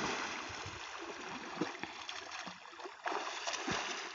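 A swimmer doing front crawl, arms and kicks splashing through river water. The splashing gets louder from about three seconds in.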